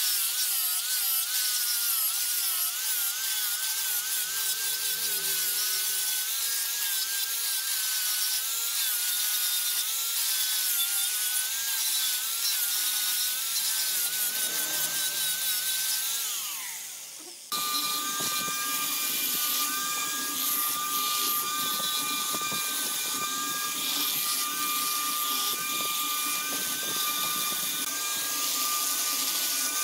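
Electric angle grinder with a cylindrical sanding drum sanding a wooden vase, its motor whining steadily with a pitch that wavers as the drum is pressed against the wood, over a hiss of abrasive on wood. Past the halfway point the whine drops in pitch as the motor slows, then the sound comes back abruptly at full speed.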